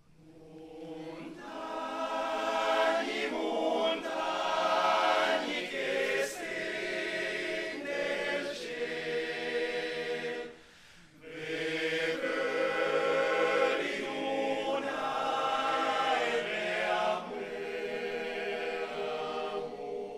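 Men's choir singing a cappella in harmony, a mountain-song choir. The singing swells in over the first couple of seconds and breaks for a short breath about halfway before the next phrase.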